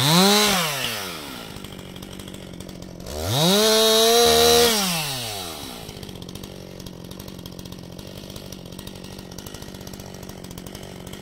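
Two-stroke chainsaw revved briefly, then revved up again a few seconds in and held at full throttle for about two seconds, before dropping back to a steady idle.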